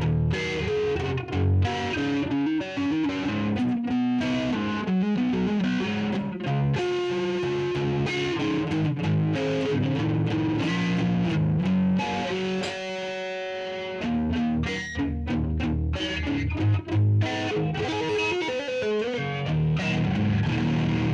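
Electric guitar played through a Donner Jet Convolution Flanger pedal with some distortion: notes and chords strummed and picked, with a held chord about two-thirds through that rings with a sweeping jet-like flange.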